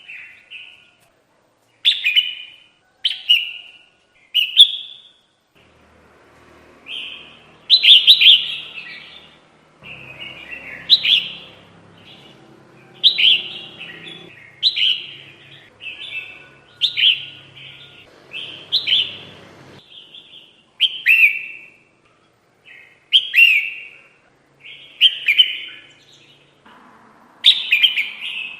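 Bulbul (kutilang) song repeated as a bird-trapping lure: short, loud, bubbly phrases, often falling in pitch, about every one to two seconds.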